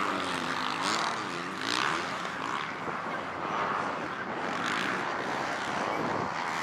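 Motocross bike engines on the track, the pitch rising and falling again and again as the riders open and close the throttle through the turns.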